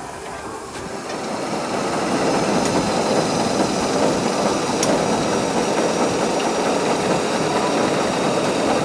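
An engine running steadily. It grows louder over the first couple of seconds and then holds level.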